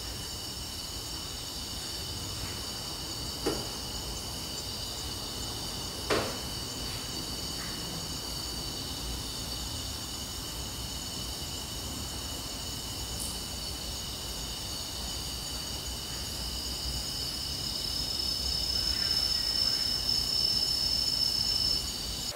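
Steady chirring of night insects, crickets, in several high pitches, growing a little louder in the last few seconds. Two sharp knocks cut through it, about three and a half and six seconds in.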